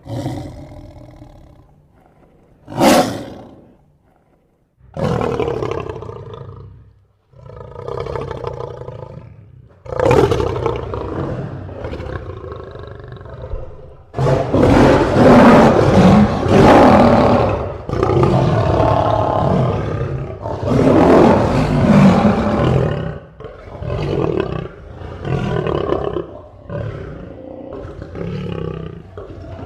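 Lion roaring repeatedly: a sharp short roar about three seconds in, then longer roars that build to the loudest, most sustained ones in the middle, tailing off near the end into a run of shorter grunting roars about one a second.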